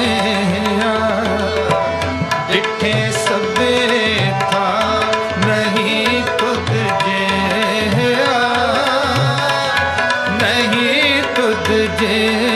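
Sikh shabad kirtan: tabla keeping a steady beat under harmonium and a sung melody with drawn-out, ornamented vocal lines.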